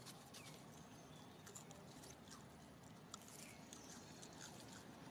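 Faint crunching clicks of a long-tailed macaque chewing cucumber close by, with a few short, high falling chirps over quiet outdoor ambience.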